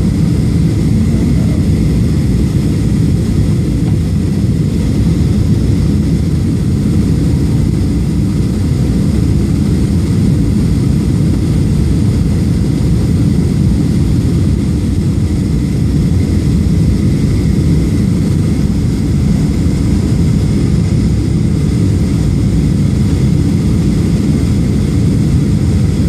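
Steady low rumble of jet airliner cabin noise at a window seat over the wing, engines and airflow running unchanged during the descent.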